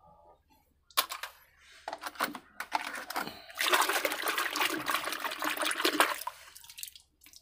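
Foamy soapy water sloshing and splashing in a metal basin as it is swirled, starting about a second in, busiest in the middle and dying away near the end.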